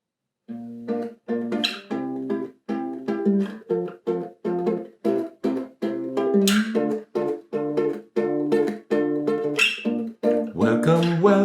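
Guitalele (six-string half-size guitar) strummed in a quick, choppy rhythm of short chords, each damped off before the next.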